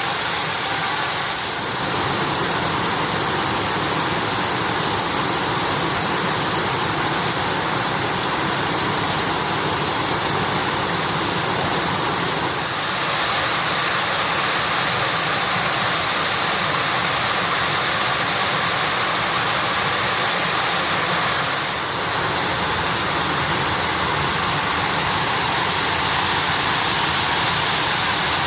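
Steady rushing and splashing of water at Shiraito Falls, a broad curtain of many thin streams of groundwater falling over a rock face.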